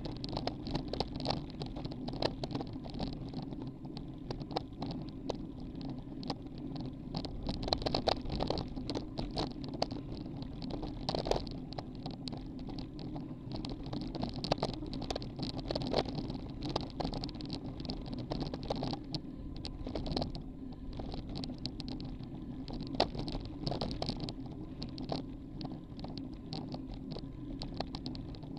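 Road bicycle rolling on asphalt: a steady hum of tyre and road noise, broken by frequent small clicks and rattles as the bike goes over the road surface.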